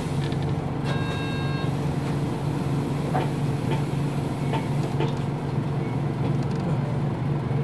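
Nissan Diesel KL-UA452MAN city bus running, heard from inside: the diesel engine's steady low hum with road noise. A short electronic chime sounds about a second in, and a few light ticks come around the middle.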